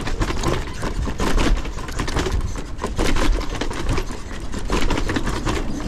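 Dirt bike bumping down stone steps: irregular clattering knocks from the suspension, chain and chassis as the wheels drop off each step, several a second, over the engine's low steady running.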